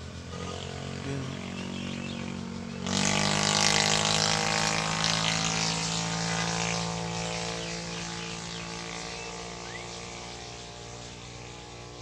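A motor vehicle passing on the road: its engine grows gradually louder, jumps sharply about three seconds in as it goes by, then slowly fades away.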